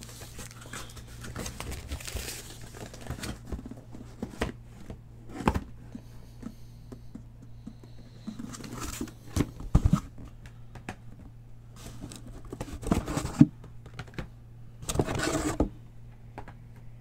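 Cardboard case and boxes being handled on a table: scattered rustles, scrapes and light knocks, with the loudest thumps about ten seconds in and a longer scraping rustle near the end.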